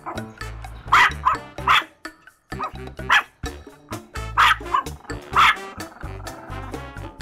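Small dog barking loudly at a person who has come in, in short runs of two or three sharp barks, over background music.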